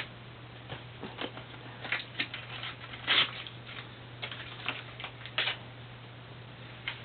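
Irregular light clicks and taps, small handling noises, a few louder ones about 3 s and 5.5 s in, over a steady low hum.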